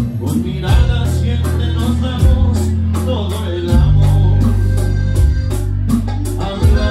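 Live grupera band playing a Latin song with a singer, bass and a steady beat of high ticks from the percussion, heard loud through a phone's microphone in a crowded room.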